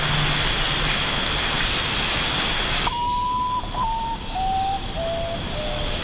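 Forest ambience: a steady hiss with faint high insect-like bands. About halfway in, it thins and a series of five clear notes steps down in pitch, each held about half a second.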